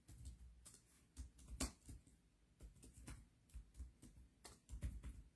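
Faint, irregular clicks and soft knocks of objects being handled on a table, over near silence.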